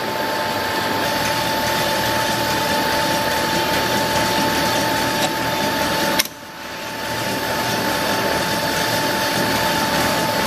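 Automatic vacuum investment mixer running, its stirrer motor and vacuum pump giving a steady hum with a constant whine, while the investment is drawn down into the steel flasks under vacuum. The sound drops out briefly about six seconds in and then builds back up.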